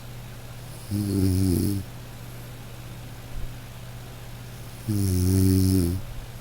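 Snoring: two long, droning snores about four seconds apart, each lasting about a second, over a steady low hum.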